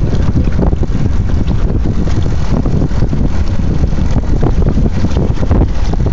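Wind buffeting the microphone on a small boat under way, a loud, steady rumble mixed with the noise of the water.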